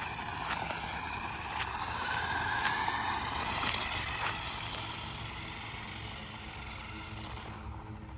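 RC car's motor whining as it drives, its pitch rising and falling with the throttle, with scattered ticks from the running gear; loudest a couple of seconds in, then fading as the car moves off.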